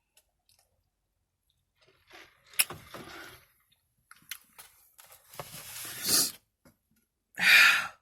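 Close-up eating sounds: chewing and wet mouth clicks, then sharp breaths. The loudest is a forceful breathy exhale near the end, from a mouth burning with hot sauce.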